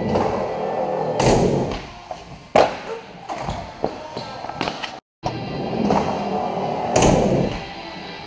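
Skateboard wheels rolling on a concrete floor, with sharp board knocks from tricks (the tail popping and the board landing or slapping down) about a second in, again near two and a half seconds, and near seven seconds, echoing in a large hall.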